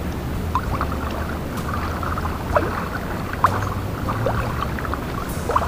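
Water splashing and dripping around a small fishing boat, with scattered short, sharp splashes over a low steady hum.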